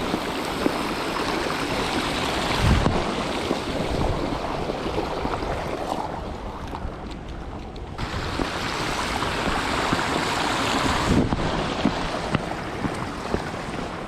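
Wind rushing over a soaked action camera's microphone, a steady hiss whose higher part drops away for a couple of seconds about six seconds in and again briefly near eleven seconds.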